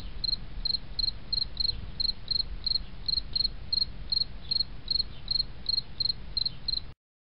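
Cricket chirping in short, evenly spaced chirps, about three a second, over a steady low rumble. It cuts off abruptly near the end.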